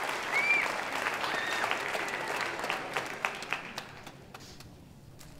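Audience applauding. The clapping thins to a few scattered claps and dies away about four seconds in.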